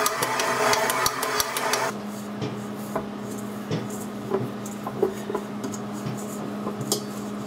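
Stand mixer motor running with a dough hook kneading bagel dough in a stainless steel bowl, a regular knocking of about four beats a second; it cuts off about two seconds in. After that come light knocks and rubbing as hands work the dough against the steel bowl, over a faint steady hum.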